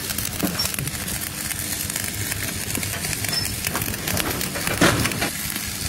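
Stick (shielded metal arc) welding: the electrode arc crackles and sputters steadily as a bead is run along a steel beam seam. A brief louder sound comes about five seconds in.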